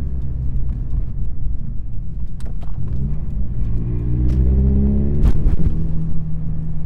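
Scion FR-S's flat-four engine under way in a manual gearbox car. It holds a steady note, then rises in pitch under acceleration for about two seconds, and breaks off sharply at a gear change a little after five seconds in. It then settles into a steady, lower note.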